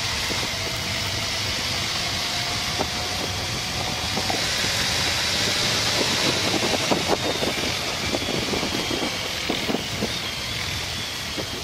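Wind rushing over a helmet-mounted camera on a moving motorcycle, with the Honda ST1300 Pan European's V4 engine running underneath as it speeds up. A few short ticks come through in the middle.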